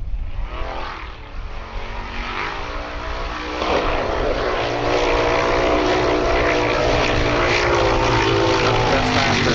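Formula Offroad buggy engine revving hard and held at high revs as the buggy skims across water, with the hiss of spray underneath. The engine's pitch climbs over the first couple of seconds and gets louder about three and a half seconds in.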